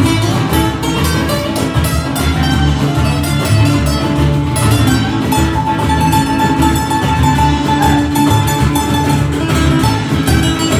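Live Latin-style band music: strummed acoustic guitars over a steady hand-percussion and drum beat, with one note held for several seconds in the middle.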